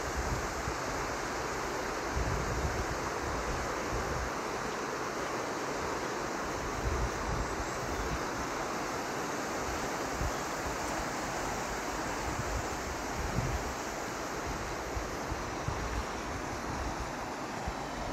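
Wind buffeting the phone's microphone in uneven low gusts, over a steady rushing hiss of rain.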